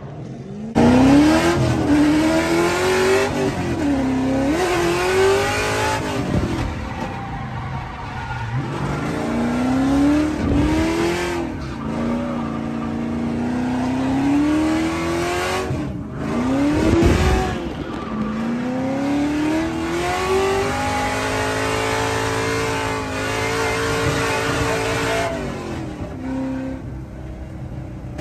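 Drift cars on track: engines revving up and falling back over and over, over a steady hiss of tyre squeal. The sound changes abruptly about a second in and again about halfway through.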